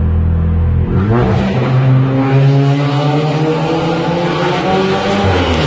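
Audi S3's turbocharged 2.0-litre four-cylinder accelerating hard in a tunnel. The exhaust note rises sharply about a second in and keeps climbing slowly, then dips briefly near the end before climbing again.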